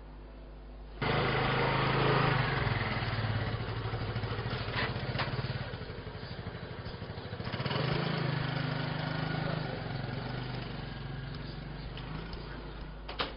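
Motor scooter engine running, easing off about six seconds in, then picking up again as it pulls away.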